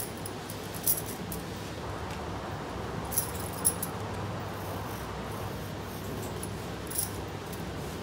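Pen drawing lines on paper with faint scratching, and a few short, sharp clicks: one about a second in, two close together in the middle and one near the end. A steady low background hum runs underneath.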